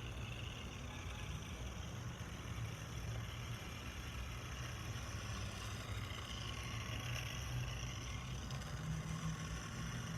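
Small electric motor of a tiny remote-control toy car whining as it drives, its high whine rising and falling, over a steady low rumble.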